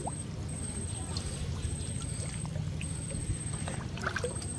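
Shallow canal water sloshing and trickling as hands grope through muddy holes for fish, over a low steady rumble.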